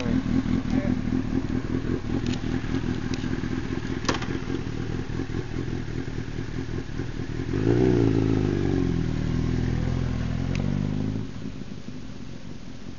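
Honda CBR1000RR inline-four through a Two Brothers aftermarket exhaust, idling with a steady pulse, then revving louder for about three seconds from around eight seconds in as the bike pulls away, and fading as it rides off. A few sharp clicks sound in the first few seconds.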